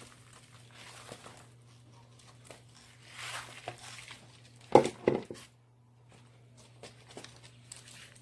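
Potting soil poured and shaken from a plastic basin into a plastic plant pot, a soft rustling hiss, then two sharp knocks about five seconds in as the upturned basin is rapped over the pot. Faint scrapes follow as gloved hands firm the soil.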